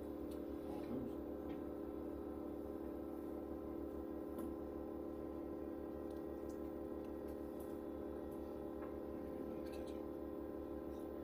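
Steady hum of a machine running in the room, made up of several fixed tones, with a few faint ticks.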